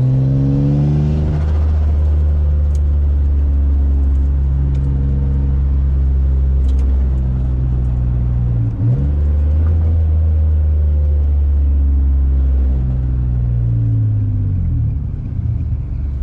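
Single-turbo Infiniti G35's 3.5-litre V6 heard from inside the cabin while cruising, a steady engine drone. The note breaks briefly about nine seconds in, then falls and eases off near the end.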